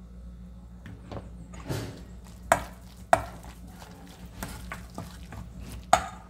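Metal spoon stirring a thick, floury cabbage-and-carrot mixture in a stainless steel bowl: soft scraping with a few sharp clinks as the spoon strikes the bowl's rim, three of them loudest and ringing briefly.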